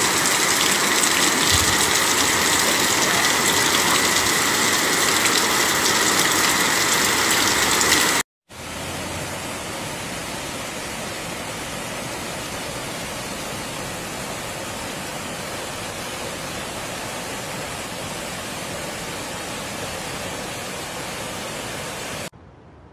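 Floodwater rushing steadily. At first muddy water gushes loudly out of an opening in a wall into a flooded street. After a brief break about eight seconds in, stormwater cascades down into a sunken stairway, somewhat quieter.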